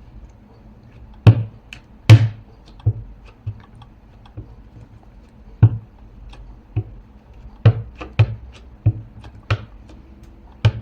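A stamp and craft tools tapped and knocked on a tabletop while stamping paper pages: about a dozen sharp, irregular taps, the two loudest about a second and two seconds in.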